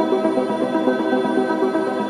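Background music: a slow ambient synth pad of sustained, overlapping tones.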